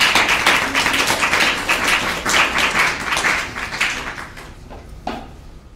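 Audience applauding, many hands clapping, thinning out near the end.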